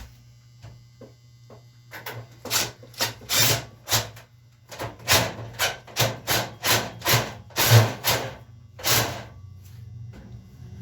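A screw being driven into wood: a run of short rasping, grinding strokes, roughly two a second, with a brief pause midway.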